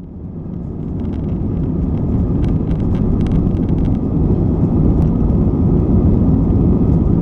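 Airliner cabin during the takeoff roll: jet engines at takeoff power and runway rumble, a dense steady low roar heard from inside the cabin. It fades in over the first second, with a scatter of light rattles in the first few seconds.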